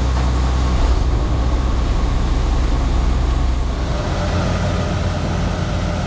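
A heavy vehicle engine running steadily with a loud, low drone. The low drone changes abruptly about four seconds in.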